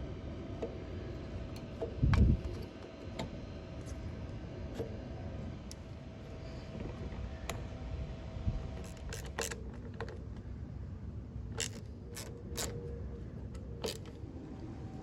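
Small tools and parts being handled during repair work: scattered sharp clicks and taps, with one dull thump about two seconds in and a cluster of clicks in the second half.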